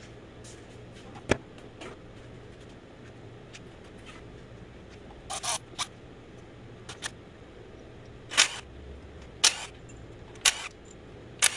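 A series of short sharp clicks and crunches, coming about one a second near the end, as the timing cover's bolts are taken out with hand tools and stabbed through a cardboard bolt holder. A faint steady hum lies underneath.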